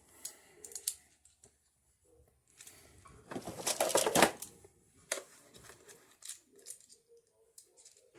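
A camera clamp and phone mount being handled and adjusted: scattered clicks and knocks, with a denser clatter of small hard parts rattling about three to four seconds in.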